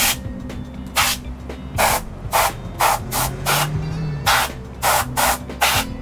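Can of compressed-air duster fired in about a dozen short hissing blasts through its straw nozzle, blowing dust out of the inside of an opened iMac.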